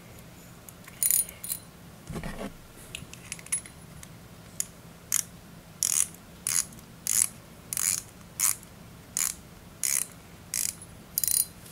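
Bullzen Berserk Immortal 3500 spinning reel being worked by hand while its line roller is refitted: a few handling clicks, then about a dozen sharp mechanical clicks, roughly two a second.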